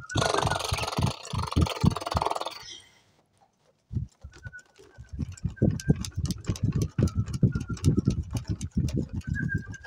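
Children's improvised soundscape made with hands and objects: rapid, irregular tapping on a surface, with a hissing rustle over the first two and a half seconds. After about a second of silence the tapping resumes, joined by short, faint, high bird-like tones.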